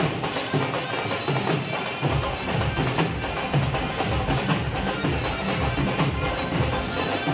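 Dhol drums played live, beating a loud, rhythmic dance pattern.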